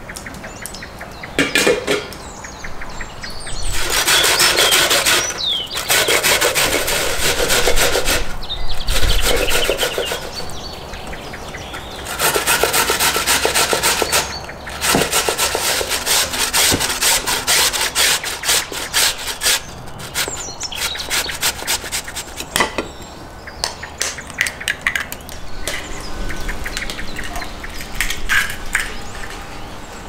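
Raw potatoes grated by hand on a metal grater into a stainless steel bowl: fast, even scraping strokes in several runs of a few seconds each, with short pauses between.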